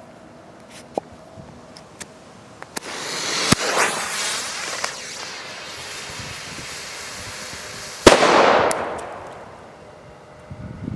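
MK5 Thunderflash airsoft grenade going off: its fuse hisses steadily for about five seconds after ignition, then one sharp bang, which echoes briefly.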